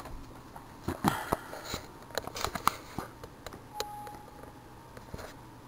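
Computer mouse clicks and light taps scattered through the first three seconds, then a short single-pitched beep nearly four seconds in: the computer's alert sound as a warning box pops up.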